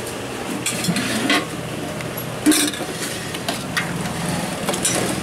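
Metal ladle knocking and scraping against a large aluminium pot as a thick, simmering potato curry is stirred, in irregular clinks over a steady low hum.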